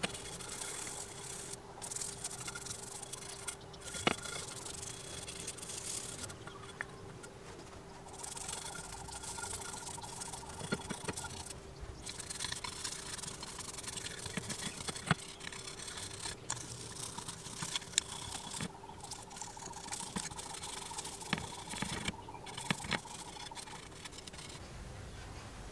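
A paintbrush's bristles brushing a wet coating onto the metal plates of a sandwich toaster: a soft, scratchy swishing in strokes, with short pauses and a few light taps of the brush.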